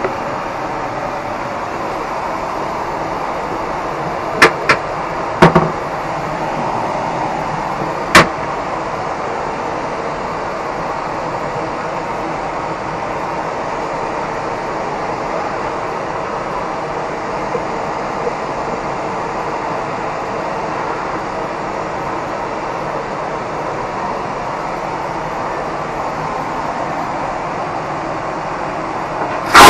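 Steady in-flight cabin noise of a Boeing airliner inside its lavatory, with a few sharp clicks about four to eight seconds in. Right at the end the toilet's loud vacuum flush starts.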